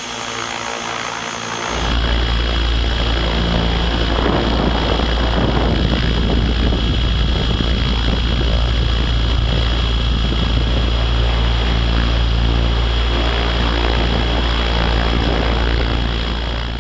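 Electric radio-controlled helicopter in flight, its rotor head speed held by the governor at about 73%: a steady rotor and motor whirr with a thin high whine, over a heavy wind rumble on the microphone that is missing for the first second or two.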